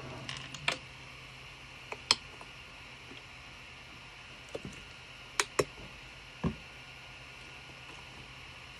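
A handful of sharp clicks and taps from handling the 3D printer's build sheet and a squeeze bottle of cleaning liquid, over a steady background hiss. The loudest tap comes about two seconds in, and a close pair comes about five and a half seconds in.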